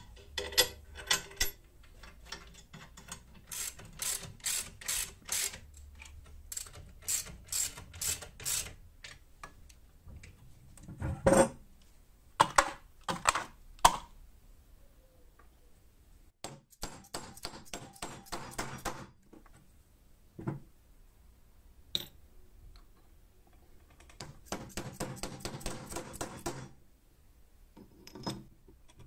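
Hand assembly of steel grinder parts and hardware: three runs of rapid, even ratchet-like clicking, and a few separate sharp metal knocks between them.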